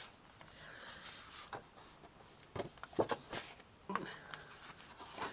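Paper and card being handled: a few short rustles and soft taps scattered through a quiet room.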